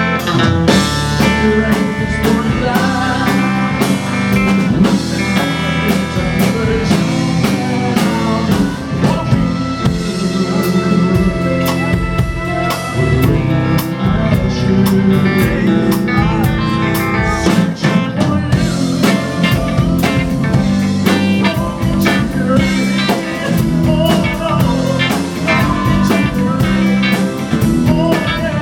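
Live band playing an instrumental passage of a slow rock-ballad song, with drum kit and guitar.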